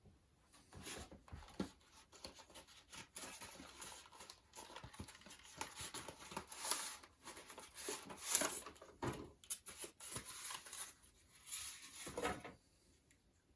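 Small plastic items being handled by hand: irregular rustling, crinkling and light clicks, stopping about a second before the end.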